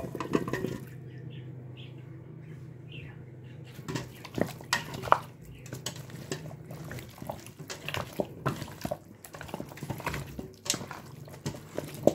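Hands mixing raw chicken pieces with spices in a bowl, making irregular wet clicks and slaps over a steady low hum. A sharp knock comes right at the start.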